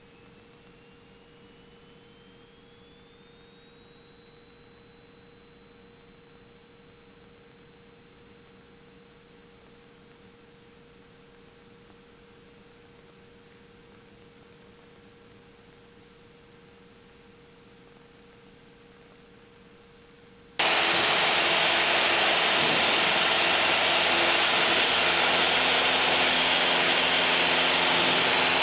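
Piper Warrior's four-cylinder Lycoming engine and propeller at full takeoff and climb power, heard inside the cockpit. For most of the stretch it is only a faint hiss with a thin electrical whine that rises in pitch and then holds steady. About twenty seconds in, the loud, steady engine and propeller noise cuts in suddenly.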